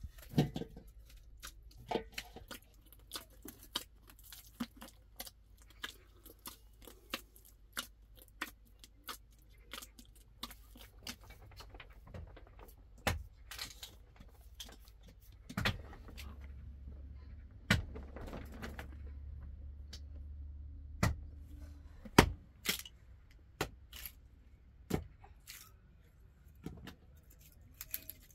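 Scattered knocks, clinks and rustles of food preparation by hand: sliced potatoes and dough are worked in aluminium bowls, and a cloth is handled. A low hum runs for a few seconds about halfway through.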